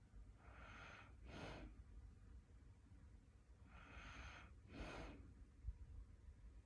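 Quiet, slow snoring breaths of a sleeper, two breaths about three seconds apart. Each breath is a longer hissing draw followed by a short puff of air.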